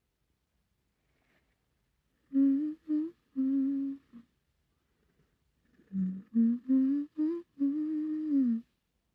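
A woman humming a slow tune in two short phrases, the first starting about two seconds in and the second about six seconds in. The last note slides down in pitch.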